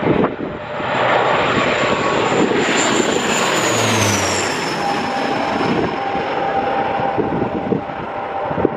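De Havilland Canada Dash 8 turboprop airliner passing low directly overhead on landing approach: steady engine and propeller noise, with a high whine that drops in pitch as it goes over about four seconds in.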